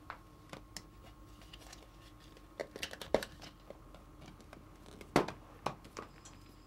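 Scattered light taps and clicks of small hand tools at work on a sculpture, irregular, with the sharpest about three seconds in and again about five seconds in, over a steady faint room hum.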